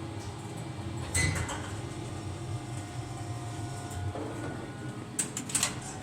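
ThyssenKrupp passenger lift: a steady low hum, a loud sharp clunk with a short rattle about a second in, and a quick run of clattering knocks near the end, like the car and its sliding doors moving.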